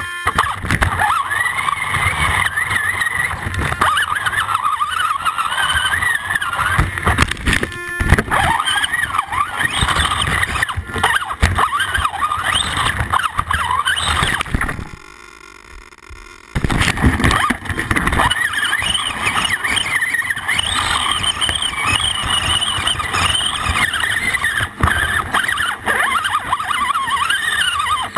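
Axial AX10 radio-controlled rock crawler's electric motor and gear drivetrain whining, the pitch rising and falling with the throttle, with knocks of the chassis and tyres on rock. The whine drops away for a second or two past the middle, then comes back.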